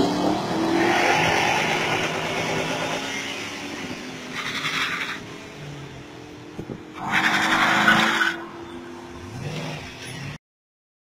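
Drag-racing cars, among them a Chrysler 300C's V8, accelerating hard away down the quarter-mile, the engine note rising through the gears and fading with distance. Two short bursts of hissing noise come a few seconds in and again about seven seconds in, and the sound cuts off abruptly near the end.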